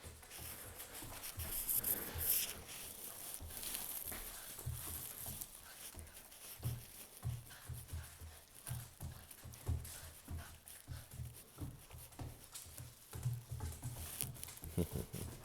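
A puppy tugging and biting at a toy, with irregular soft thumps and scuffling as it plays, the bites weaker as it tires.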